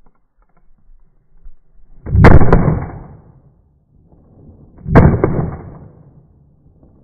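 Pistol gunshots: a quick pair of shots about two seconds in and another pair about five seconds in, each ringing off for about a second.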